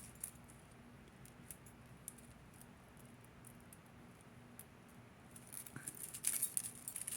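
Shell-bead necklaces being worked apart by hand, beads and chain clicking lightly against each other now and then, the clicking getting busier and louder near the end.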